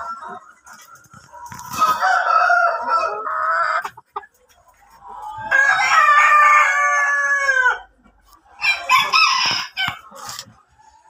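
Roosters crowing: a crow about a second and a half in, a longer one in the middle whose end falls in pitch, and another shorter one near the end.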